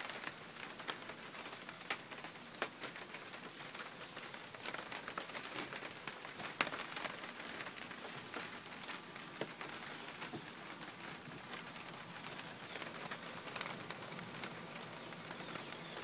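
Steady rain falling, with many scattered sharper drops tapping throughout.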